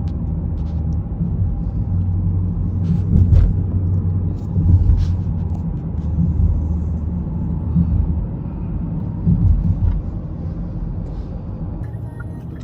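Car on the move: a steady low rumble of engine and road noise, with a few faint clicks and short swells.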